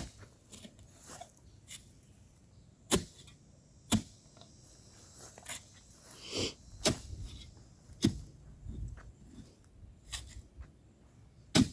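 Digging tool striking into rocky lime-rock ground, about seven sharp, irregularly spaced chops and knocks.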